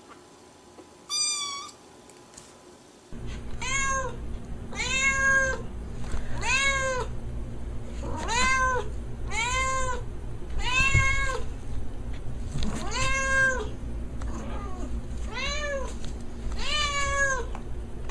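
A kitten gives one short, high mew about a second in. Then a calico cat meows again and again, about a dozen meows roughly every second and a half, each rising and then falling in pitch, over a steady low hum.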